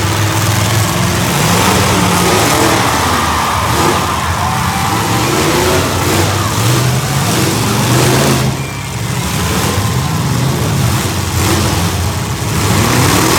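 Several demolition-derby cars' V8 engines running and revving up and down at once, loud and continuous, easing briefly about eight and a half seconds in.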